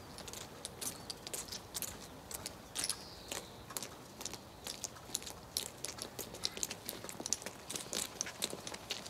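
Footsteps of several soldiers in boots on cobblestones: uneven, overlapping clicks and scrapes, several a second, with no steady rhythm.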